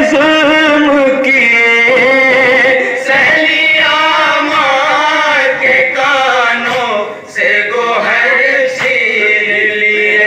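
Male voice chanting a noha, a Shia mourning lament, in long held lines that waver in pitch, with a brief break about seven seconds in.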